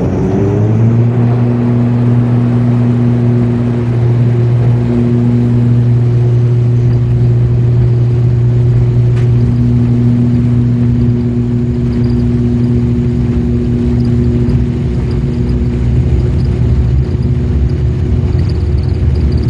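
ATR 72-500's Pratt & Whitney PW127 turboprop engines and six-blade propellers going to takeoff power, heard from inside the cabin. The propeller drone rises in pitch in the first second, then holds a steady, loud hum through the takeoff roll.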